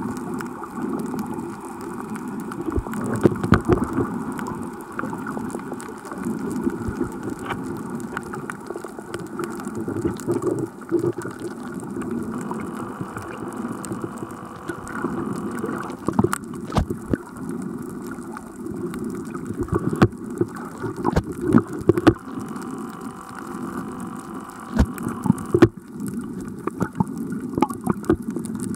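Muffled underwater sound: a steady low wash of moving water with many scattered sharp clicks and crackles.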